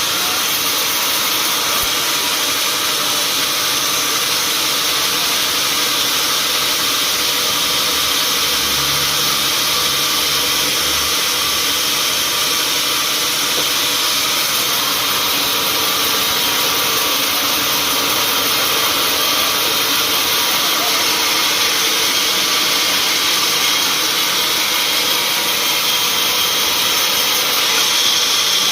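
Sawmill machinery running steadily: a loud, even, hissing mechanical noise with no breaks.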